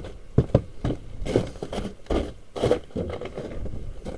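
Footsteps crunching on packed snow and ice, a string of uneven steps.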